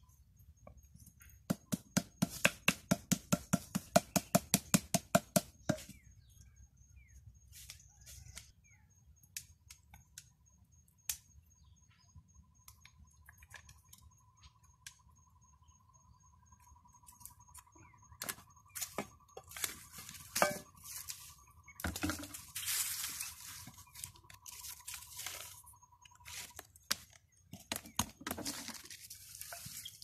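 A machete chopping rapidly, about five strokes a second for some four seconds, followed by scattered knocks and rustling from handling the wood. A faint steady whistling tone runs through the middle.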